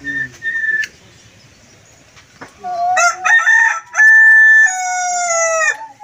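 Common myna giving a short whistle, then, about three seconds in, a loud call of a few quick notes followed by two long held notes, the last one slightly lower and sliding down at its end.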